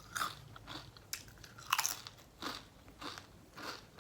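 A person chewing crunchy food close to the microphone, with crunches coming about twice a second.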